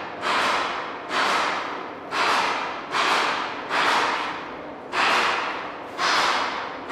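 Rhythmic backing track of swishing, cymbal-like hits, a little under one a second, each striking sharply and fading away.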